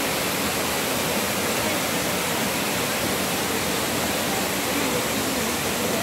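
Waterfall and stream rushing over rocks: a steady, even rush of water.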